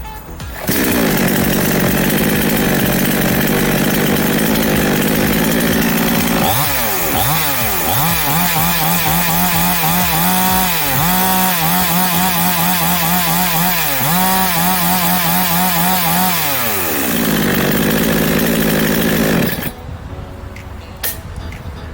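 Small two-stroke gas chainsaw running at high revs, probably cutting wood. Its pitch dips and recovers several times, as a saw does when it bogs under load, then falls away. The sound stops suddenly a couple of seconds before the end.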